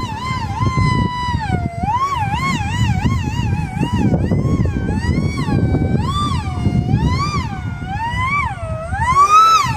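A small RC plane's electric motor and propeller whining at high speed. The pitch swings up and down quickly and unevenly as the throttle and the plane's passes change, and is highest near the end. Wind rumbles on the microphone underneath.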